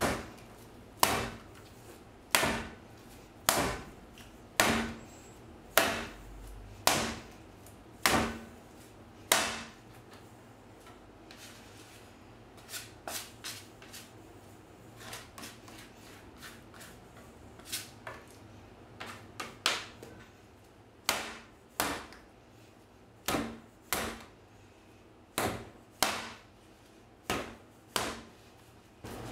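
Soft bread dough being slapped down hard onto a countertop and folded by hand during kneading: a sharp slap about once a second, with softer, irregular pats in the middle.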